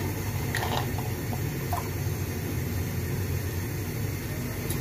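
Steady low rumble of a lit stove burner under an aluminium pot of water heating toward the boil, with a few faint light clicks in the first two seconds.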